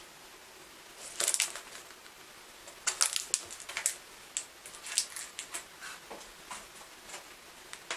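A paperback book in a clear plastic cover is handled and set down on a stack of paperbacks. Crinkling plastic and light taps and rustles come in a short cluster about a second in and a longer one from about three to five and a half seconds in, with scattered small ticks after.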